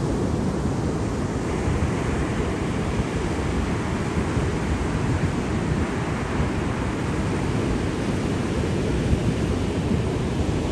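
Sea surf washing continuously, a steady rush of water heavy in the low end, with a brighter hiss of breaking water coming up about a second and a half in.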